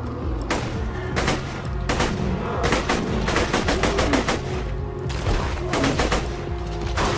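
Video-game gunfire: an automatic gun in a first-person shooter firing repeated shots in short bursts, over a steady low game-music bed.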